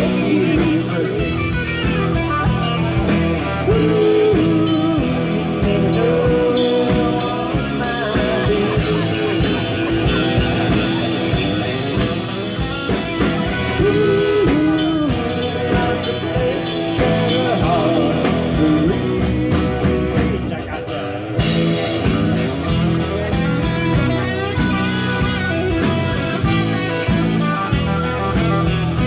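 Live band playing bluesy rock with guitar over a steady drum beat.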